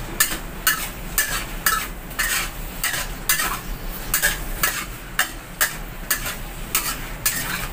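A long-handled metal spatula stirs beef and onions in sauce in a steel wok, scraping the pan about twice a second over a steady sizzle.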